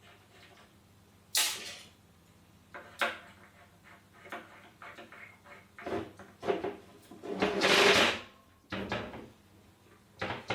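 Metal parts and hand tools handled at a workbench while a welding positioner's shaft assembly is fitted: two sharp knocks early on, then a run of clunks and clatter with a scraping noise about a second long about three-quarters of the way through.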